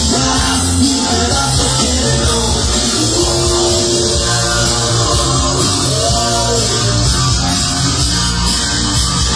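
Loud dance music played over a party DJ sound system, with a strong, steady bass beat under guitar and melody.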